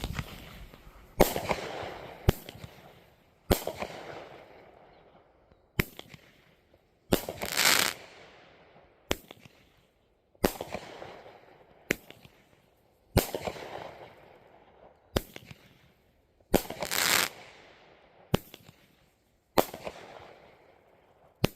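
Fox Fireworks 'Frosty' 200-gram firework cake firing shot after shot, about one every second and a half, each sharp launch followed by a fading hiss from its burst; two of the shots have a longer, louder hiss.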